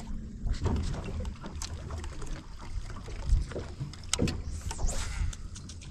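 Water lapping against a bass boat's hull, with a low rumble of wind on the microphone and scattered light knocks and clicks.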